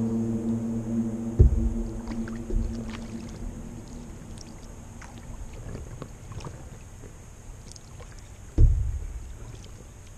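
Stand-up paddleboard being paddled: paddle strokes and light water splashing, with two heavy knocks on the board, one about a second and a half in and one near the end. A low steady hum fades out in the first two seconds.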